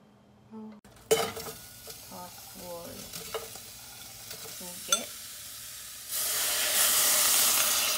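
Sliced onions hit a hot stainless steel saucepan and sizzle, with a few clinks. About six seconds in, a soy-sauce sauce poured into the pan sets off a much louder, steady sizzle.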